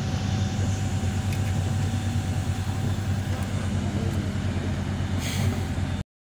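Heavy diesel construction machinery running with a steady low engine rumble. A short hiss comes about five seconds in, and the sound cuts off suddenly about a second later.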